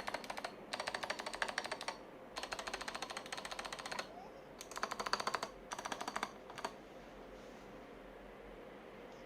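Fast typing on a Kira96 mechanical keyboard with lubed Kailh BOX Jade clicky switches, which are really loud. The keystrokes come in several quick bursts with short pauses between them, and stop about two-thirds of the way through.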